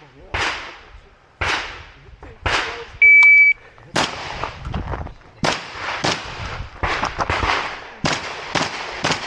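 Shot timer's start beep about three seconds in, a single steady tone lasting about half a second, right after a few separate gunshots spaced about a second apart. About half a second after the beep a shotgun opens fire: a fast, irregular string of shots with short pauses between groups.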